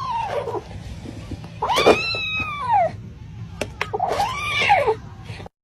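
A cat meowing: long, drawn-out meows that rise and fall in pitch, three of them, the first ending just after the start.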